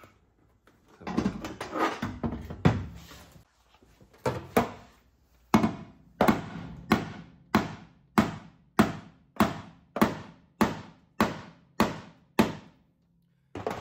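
Hammer striking the steel lip of a Holden VN Commodore's chassis rail to bash it down for turbo manifold clearance. It starts with a cluster of irregular knocks, then settles into a steady run of about a dozen ringing blows, roughly one and a half a second, that stop shortly before the end.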